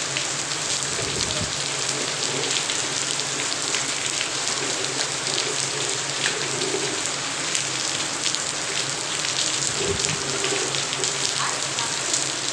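Steady rain falling on a concrete yard and a tiled roof.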